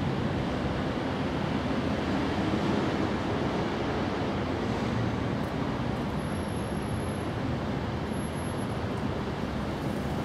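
Steady rumbling background noise with no distinct events.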